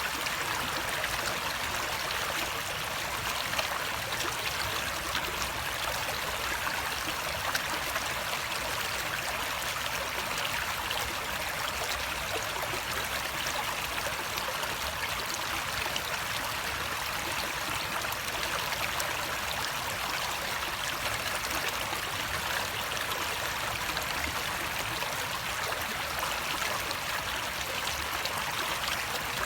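Running water flowing and splashing steadily, an even rush with no pauses or changes.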